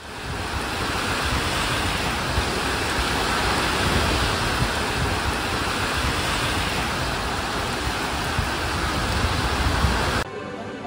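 Loud, steady rushing noise with no distinct events, cutting off suddenly near the end.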